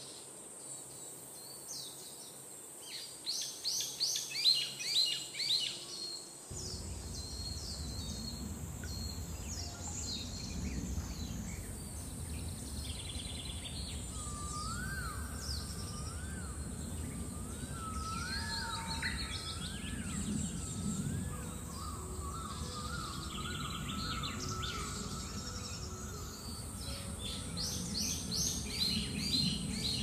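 Songbirds chirping: clusters of quick high chirps a few seconds in and again near the end, over steady background noise that comes in suddenly about six seconds in. In the middle a whistle rises and falls over and over.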